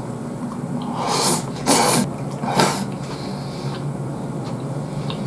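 A man eating a Japanese beef bowl (gyudon) with chopsticks, chewing a mouthful, with three short loud noisy bursts about one, two and two and a half seconds in. A low steady hum runs underneath.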